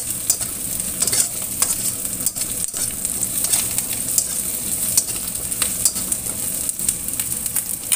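Shallots, garlic, lemongrass and kaffir lime leaves sizzling in hot oil in a stainless steel wok, stirred with a metal fork that makes frequent light clicks and scrapes against the pan.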